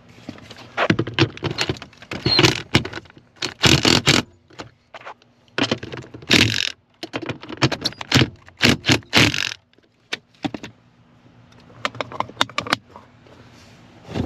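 A cordless drill-driver and socket snugging down the mounting bolts of a Ford F250's gas pedal assembly: a string of short clatters, rattles and scrapes of metal on the pedal bracket, quieter near the end.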